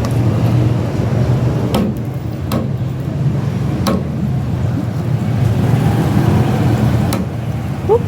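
Steady low rumble of street traffic, with four sharp knocks spread through it.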